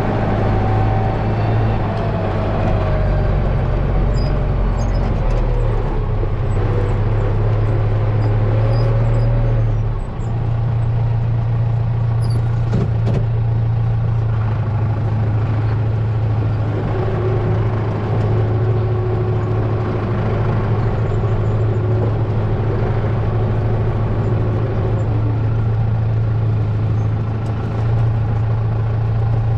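Tractor engine running steadily under the cab, a constant low hum with a brief dip about ten seconds in, as the tractor moves.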